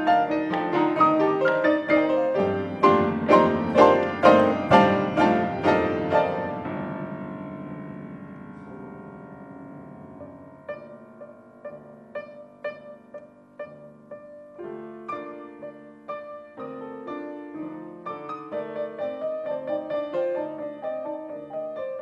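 Six grand pianos played together: loud, densely packed chords struck in a steady pulse, then left to ring and fade for several seconds. From about eleven seconds in, quieter scattered notes and short figures enter and gradually thicken again.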